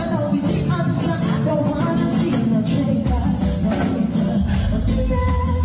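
Live reggae band performance: a male singer sings into a microphone over a drum kit and bass guitar, with a steady beat.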